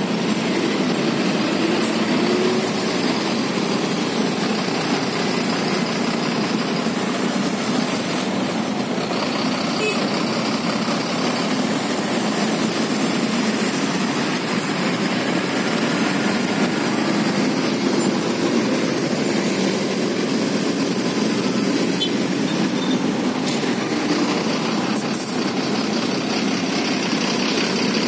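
Steady running of engines in slow, crawling traffic: motorcycles and a large tour bus close by, heard from a motorcycle, with no sudden events.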